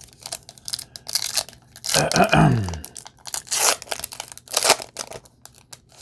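Topps Chrome trading cards being slid and flipped by hand, making a few short scraping rustles as one card moves off the next.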